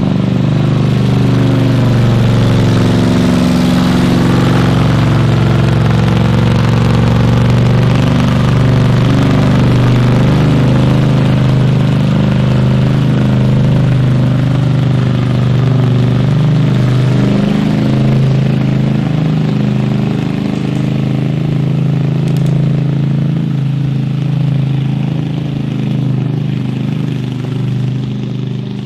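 A large engine running steadily at a fairly constant speed, loud, easing off slightly near the end.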